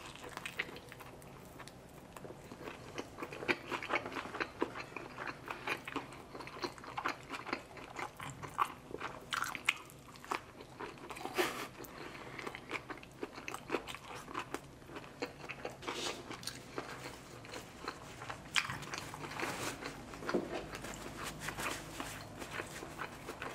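Close-miked eating of a shrimp taco: biting and chewing, with dense, irregular wet mouth sounds and short sharp crackles that come in thicker clusters around the middle and near the end.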